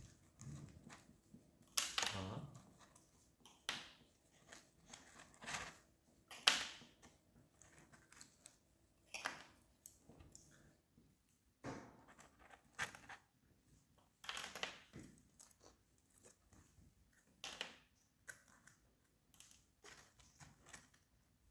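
Scattered soft clicks, taps and rustles of tabletop handling, about a dozen spread irregularly: chopsticks pulling birthday candles out of a paper box of fried chicken, the candles set down on the table, and the chicken being picked up.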